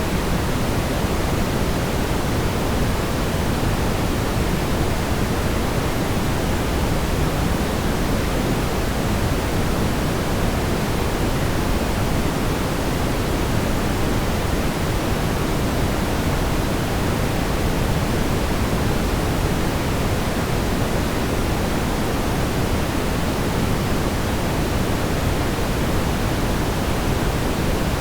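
Smoothed brown noise: a steady, even hiss weighted heavily toward the deep low end, with no changes, tones or events.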